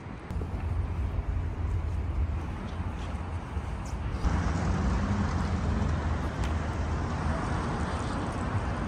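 Road traffic noise: a steady, low rumble of motor vehicles that gets louder about four seconds in.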